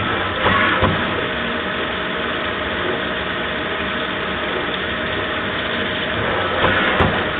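Mori Seiki MV Junior CNC vertical machining centre running, its spindle milling brass valve bodies under flood coolant: a steady machine hum with coolant spray hiss. Two brief louder surges come about half a second in and again near the end.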